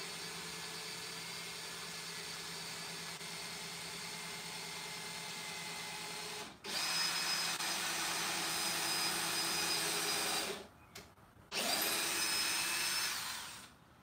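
Cordless drill motor driving screws in three runs: a steady whine for about six and a half seconds, then after a brief stop a louder run of about four seconds, and a shorter run after another pause near the end.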